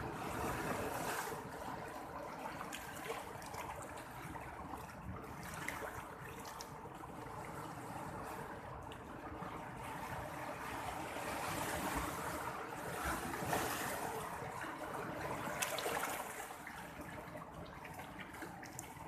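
Seawater washing and lapping: a continuous splashing wash that slowly swells and eases, with a faint steady hum underneath.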